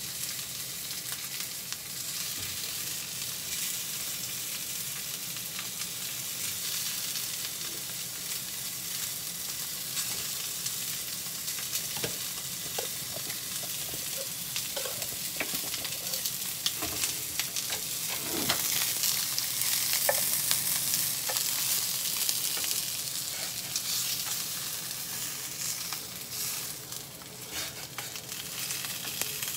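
Pork cartilage sizzling as it sears in a frying pan, with light clicks and knocks of chopsticks turning the pieces. The sizzle swells louder about two-thirds of the way through.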